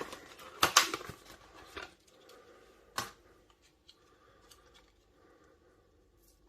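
Handling noises on a workbench: a few rustles and clicks in the first second or so, one sharp click about three seconds in, then only faint room sound.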